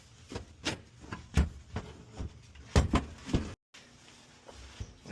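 Irregular knocks and clunks of hands and tools working on a furnace's sheet-metal cabinet while it is being stripped. The loudest come about a second and a half in and again near three seconds.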